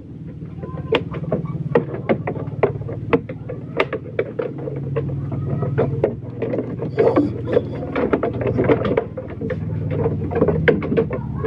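Steady low motor hum, like an engine running, under a scatter of sharp clicks and knocks from handling the sheep on the wooden pen floor.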